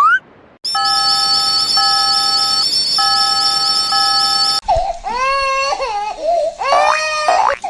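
Cartoon sound effects: a held electronic chord of several steady notes sounds in four pulses of about a second each. About four and a half seconds in it gives way to a wailing, crying-like voice whose pitch swoops up and down.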